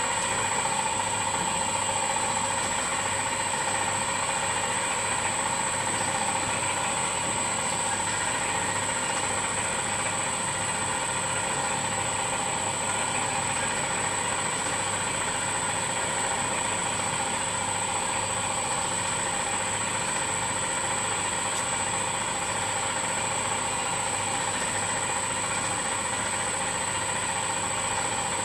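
Boutelje Honey Auger running steadily as it grinds blocks of crystallised honey: a constant machine hum with a thin high whine held over it.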